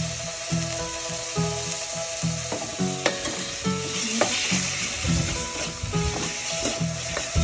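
Ground pork sizzling as it fries in a pan and is stirred, with a few sharp scrapes of the utensil against the pan about three and four seconds in.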